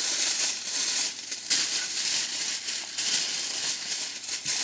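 Several layers of aluminium foil being folded over by hand into a parcel around a whole fish, crinkling irregularly throughout.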